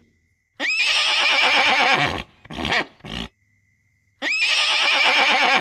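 Horse whinnying twice, each call about one and a half seconds long with a quavering, shaking pitch, with a couple of short calls between them.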